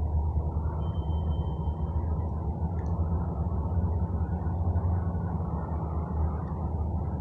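A steady, continuous low droning hum or rumble of unidentified origin, with a faint thin high tone briefly about a second in.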